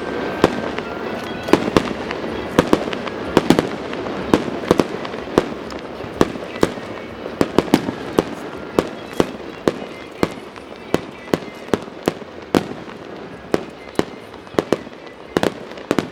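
Fireworks display: an irregular string of sharp bangs, about one to three a second, over a continuous crackle that slowly fades toward the end.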